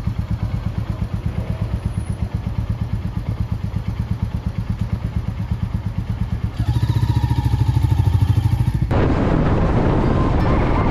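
Royal Enfield Classic 350's single-cylinder engine running with an even, rapid pulsing beat. About two-thirds of the way in it grows louder as it revs up. Near the end it cuts abruptly to a dense, even noise.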